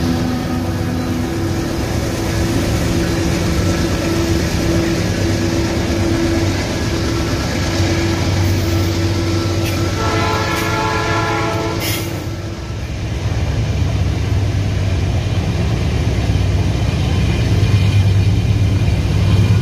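Heavy freight train passing close by: diesel-electric locomotive engines running with a steady low hum and wagons rolling over the rails. A locomotive horn sounds for about two seconds a little past the middle.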